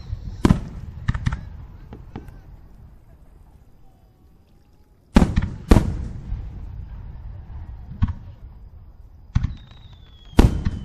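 Aerial firework shells bursting: sharp bangs, each followed by a low rumbling echo, coming irregularly. There are several in the first couple of seconds, a loud pair about five seconds in, and another loud bang near the end.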